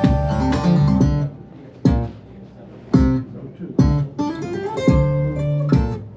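Acoustic guitar music: plucked notes and chords struck about once a second, each ringing out and fading before the next.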